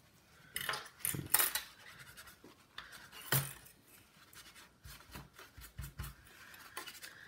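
Irregular scraping and light clinks as dried thermal paste is cleaned off a laptop heatsink, with small metal parts handled on the bench.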